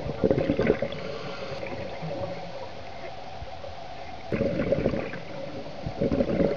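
Scuba regulator exhaust bubbles gurgling underwater in three bursts: at the start, about four seconds in, and near the end. A steady faint hum runs underneath.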